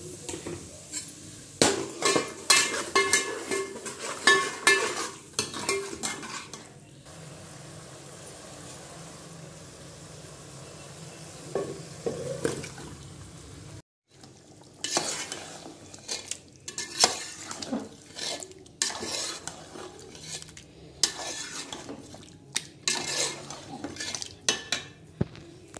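Metal spoon scraping and clinking against a metal cooking pot, stirring yogurt into hot oil and masala, over a sizzle of frying. Partway through the clatter gives way to a steadier sizzle; after a brief break, brisk stirring and scraping of marinated chicken in the pot resumes.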